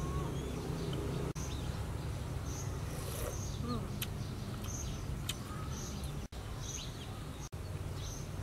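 Insects chirping, high and repeating about once or twice a second, over a steady low hum, with a few short bird chirps. The sound drops out briefly three times.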